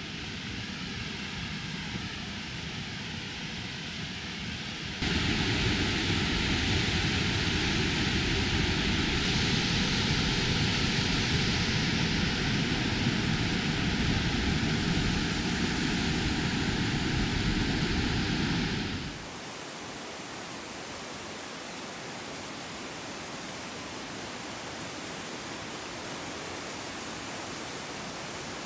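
Tokopah Falls, a waterfall pouring over granite, giving a steady rush of water noise. It gets clearly louder about five seconds in and drops back to a softer rush about nineteen seconds in.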